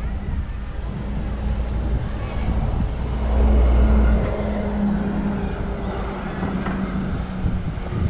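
A motor vehicle's engine running as it passes in traffic, a steady low drone that swells to its loudest about three to four seconds in and then fades.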